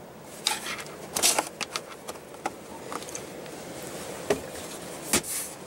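Scattered plastic clicks and taps, with light rustling, as the storage lid of a 2015 Audi A4's rear centre armrest is handled. The sharpest knock comes about five seconds in.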